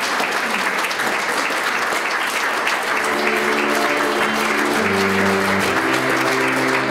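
Audience applauding steadily. About three seconds in, music with long held notes fades in under the applause, joined by a low bass line near the end.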